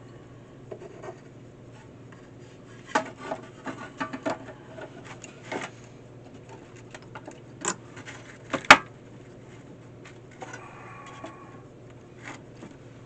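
Small tools and parts handled at a workbench during a fence charger repair: scattered clicks and taps, one sharp click about eight and a half seconds in, and a brief scraping about ten seconds in, over a steady low hum.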